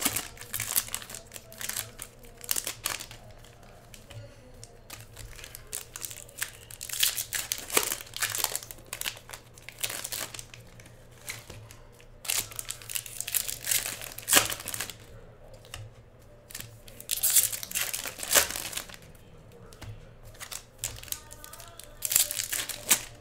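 Foil trading-card pack wrappers crinkling and tearing as packs are opened by hand, in irregular bursts with short quiet gaps.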